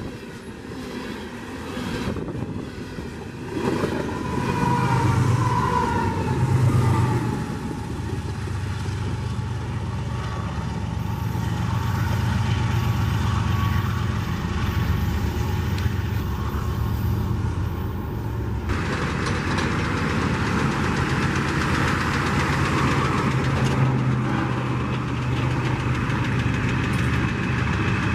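Diesel locomotive engines running with a steady low rumble. The sound changes abruptly about two-thirds of the way through.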